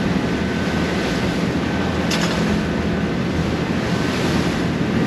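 Boat motor running steadily in gear under way, mixed with wind buffeting the microphone and the wash of choppy water. A brief sharp sound about two seconds in.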